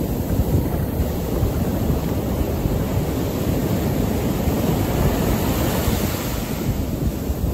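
Ocean surf breaking and foam washing over wet sand at the water's edge, with wind rumbling on the microphone. The wash swells and hisses more brightly about five seconds in.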